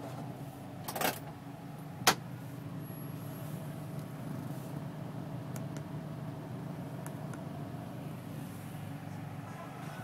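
Steady low hum of a London black cab's engine and cabin, with a short rustling burst about a second in and a single sharp click about two seconds in, then a few faint ticks.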